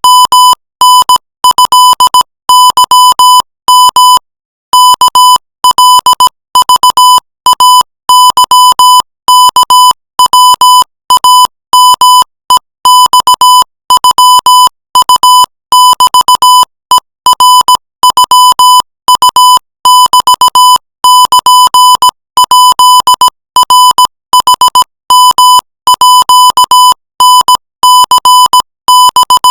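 Morse code sent at 20 words per minute: one steady, loud beep keyed on and off in short dots and longer dashes, with brief silences between letters and words.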